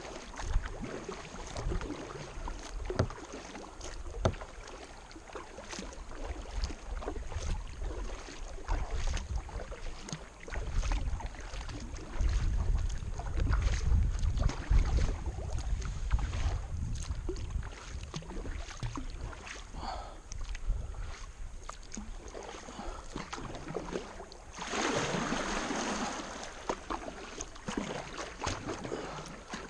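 Kayak being paddled: repeated paddle splashes and knocks against the hull, with a low wind rumble on the microphone through the middle and a louder rush of water near the end.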